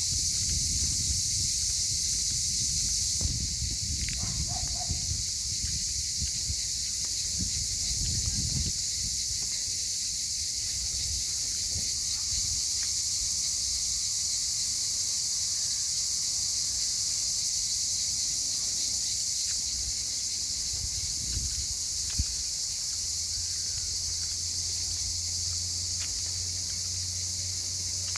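Steady, unbroken high-pitched chorus of cicadas. Low rumbling comes and goes in the first several seconds, and a low steady hum joins about 23 seconds in.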